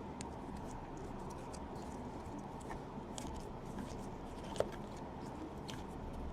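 Faint scattered clicks and rustles of trading cards being handled and shuffled, over a low, steady background hum.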